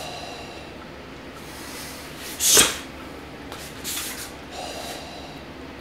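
A short, sharp whoosh of a karate low block being thrown, about two and a half seconds in, followed by a few softer whooshes as the arms are chambered again.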